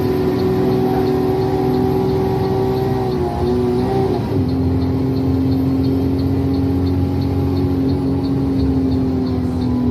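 Bus horn held on without a break, dropping to a lower pitch about three to four seconds in, while the turn-signal relay ticks about three times a second over the bus engine's running.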